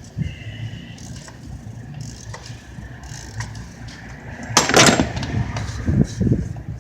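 Socket and ratchet working the oil filter cap off a 2004 Ford F350's engine, with tool and handling noises and one loud clatter about four and a half seconds in, over a low steady rumble.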